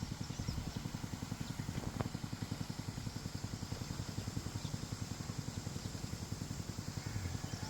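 A small engine running steadily with an even, rapid low pulse. One sharp click comes about two seconds in.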